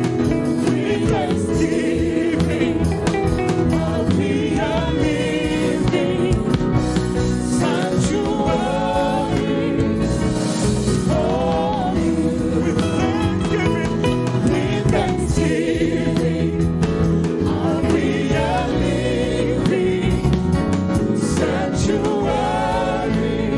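Live gospel worship music: several singers sing together over electric bass, electric guitar, keyboard and drums.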